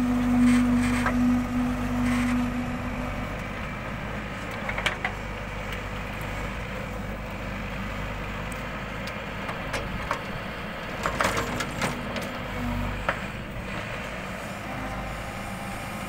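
Backhoe loader's diesel engine and hydraulics running under load as the rear bucket digs soil, with a steady whine for the first three seconds that then fades. Several sharp clanks from the bucket and arm linkage, mostly in the second half.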